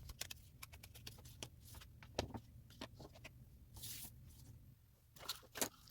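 Faint, irregular light taps and scuffs of ink being dabbed and rubbed onto the edges of a paper card, with a brief soft rubbing hiss about four seconds in.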